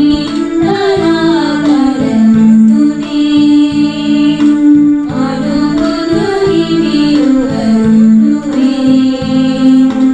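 Sinhala Buddhist devotional song: a voice singing a winding melody over sustained instrumental tones and a regular drum beat.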